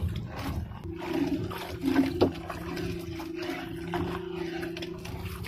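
Wet nylon gill net being hauled hand over hand across a boat's gunwale, with dripping water and short knocks against the hull, the sharpest about two seconds in. A steady low engine hum runs beneath it.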